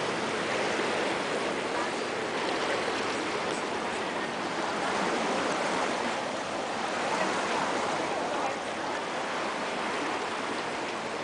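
Steady rushing and splashing of water moving past a boat.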